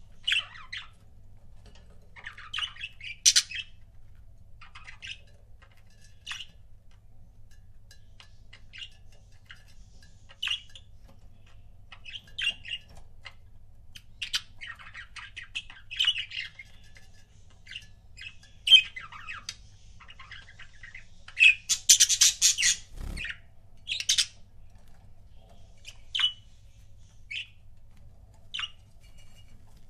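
Pet budgerigars chirping and squawking in short, scattered calls, with a denser flurry of squawks about two-thirds of the way through.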